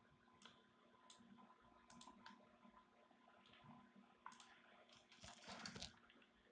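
Near silence: faint room hum with a few scattered, faint computer-mouse clicks and a short faint rustle near the end.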